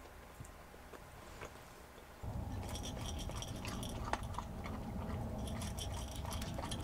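A dog eating from a bowl: quick, irregular crunching and clicking of food against the bowl, starting about two seconds in over a steady low background. Before that, only a few faint clicks.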